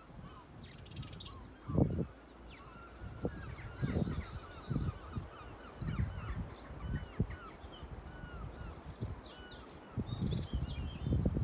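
Several wild birds calling outdoors: short chirps and slurred calls throughout, with a high, rapid trill in the second half. Uneven low gusts of wind buffet the microphone.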